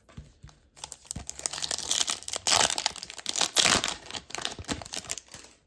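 Foil hockey card pack wrapper being torn open and crinkled by hand, a dense crackling that peaks twice in the middle.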